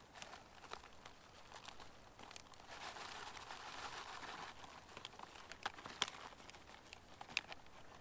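Crinkling of a foil boil-in food pouch being handled, with a stretch of dry rustling about three seconds in and scattered light clicks.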